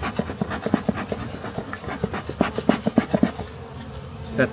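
Honeybees buzzing around an opened hive, with many short, loud buzzes as individual bees fly close past the microphone.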